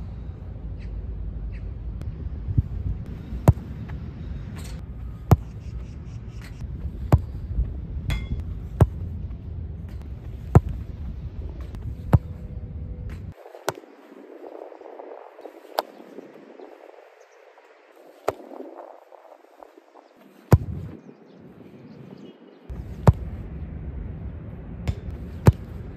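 Footballs kicked one after another on artificial turf: a sharp thud of boot on ball every second or two, over a low wind rumble that cuts out for several seconds midway.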